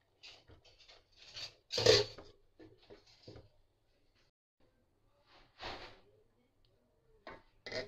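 A few brief knocks and clatters of cookware being handled, the loudest about two seconds in, which fits a glass lid being set on the cooking pot; softer knocks follow, with quiet stretches between.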